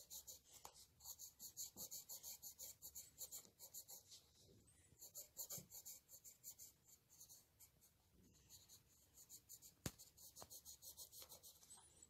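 Faint pencil scratching on sketchbook paper in quick short strokes, several a second, with brief pauses between runs of strokes and a single sharp tap near ten seconds in.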